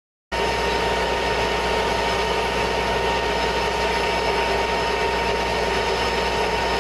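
M1 Abrams tank's gas-turbine engine running steadily, a constant whine over a low rumble. It starts a fraction of a second in, after a moment of silence.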